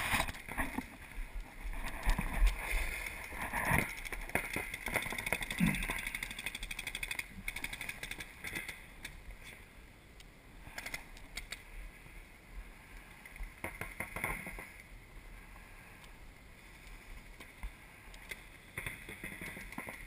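Paintball markers firing in quick strings of pops, with pauses between bursts, over outdoor background noise on a helmet camera's microphone.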